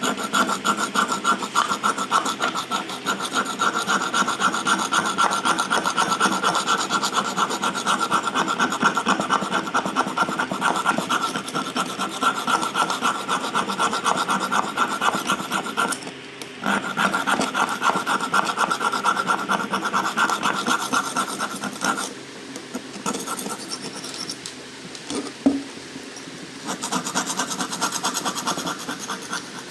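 Continuous abrasive rasping as a workpiece is filed, sanded or sawn, in dense rapid strokes, with a short break about 16 seconds in and a quieter stretch from about 22 to 27 seconds.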